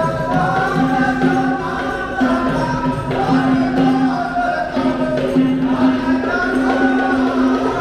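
Singing voices carrying a wavering, chant-like melody over a steady low drone; the drone breaks off briefly and resumes every two or three seconds.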